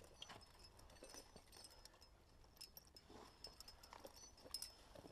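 Near silence, with faint, scattered scrapes and clicks of a climber's hands moving on granite rock.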